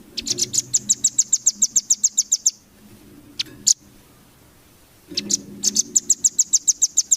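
Velvet-fronted nuthatch (rambatan) calling: a rapid trill of sharp, high chips, about eight a second for two seconds, then two single chips, then a second trill near the end.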